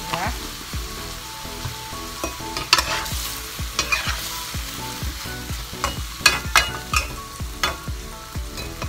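Luffa chunks sizzling in a wok with a little water while a metal spatula stirs them. The spatula scrapes and clinks against the pan several times over a steady frying hiss.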